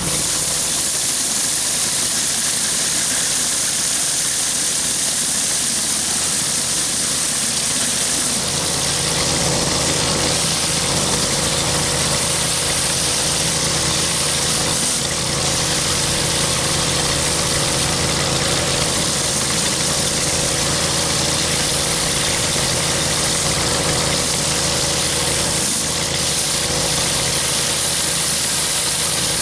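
Pressure washer engine running steadily while a rotary surface cleaner is pushed over a concrete sidewalk, its water jets making a constant hiss. The engine's low hum gets stronger about eight seconds in.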